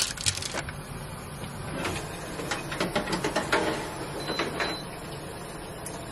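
Wire basket clattering and clicking as it is handled and slid into a Zolele countertop air fryer oven, then two short high beeps from its control panel a little past four seconds in as it is set.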